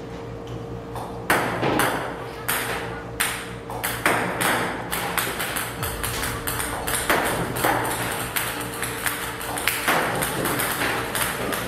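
Table-tennis balls fired by a ball-throwing robot clicking on the table, about two a second at first and quicker from about four seconds in, with a steady hum underneath.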